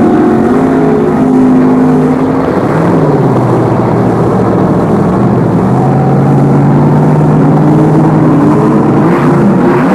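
Fuel-injected V8 of a Top Comp altered drag car, with eight velocity stacks, running loudly and steadily. Its note shifts briefly about three seconds in and again near the end.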